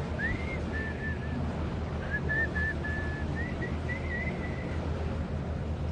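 A high, clear whistled tune in short stepping phrases, over the steady low hum of a boat's engine and wind.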